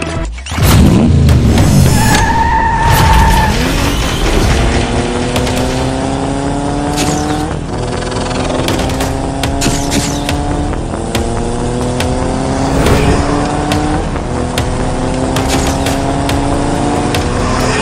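Motorcycle engine sound effect accelerating hard up through the gears. Its pitch climbs for about three seconds, drops and climbs again, five times over, after a loud impact near the start.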